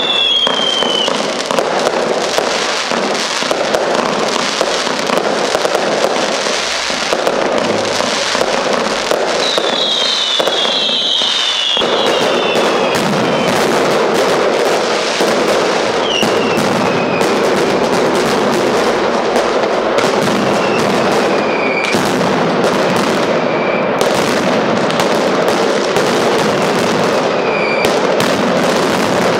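Fireworks: a dense, continuous barrage of firecracker bangs and crackles, with several whistles that fall in pitch.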